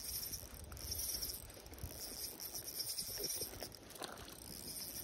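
Small spinning reel being cranked as a hooked trout is played on light line, a steady high whirring over a low wind rumble on the microphone, with a splash from the fish about four seconds in.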